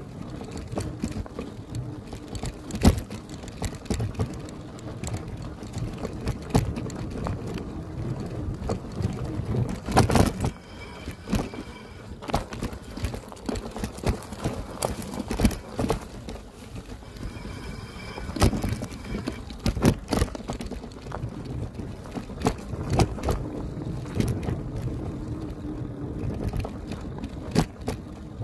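Electric bike riding over rough off-road ground: a running clatter of knocks and rattles from the frame and tyres over bumps, over a low rumble. A faint high tone comes in twice, briefly.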